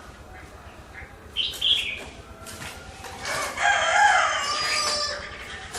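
A rooster crows once, a drawn-out call of about two seconds in the second half. A short, high bird call comes about a second and a half in.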